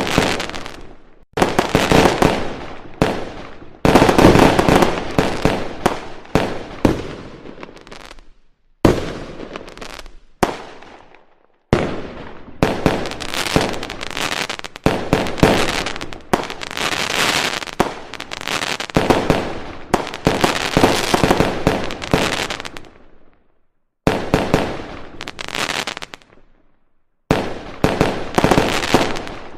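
Aerial firework shells bursting one after another, a dense run of bangs and crackling, loudest about four seconds in. The sound cuts off and resumes abruptly several times.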